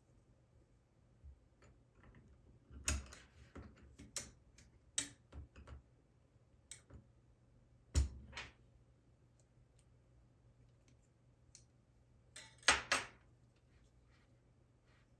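Scattered sharp clicks and taps from handling the Keychron K10 Pro mechanical keyboard, in small clusters with pauses between; the loudest come about three seconds in, at about eight seconds, and near the end.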